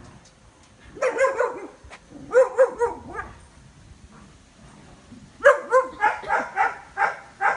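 A dog barking in short, high-pitched barks: a few about a second in and around two and a half seconds, then a quicker run of about three barks a second from about five and a half seconds in.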